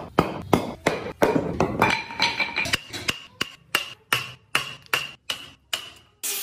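Hammer striking a chisel to chop waste out of a hardwood block, about three even blows a second, the later blows with a short metallic ring.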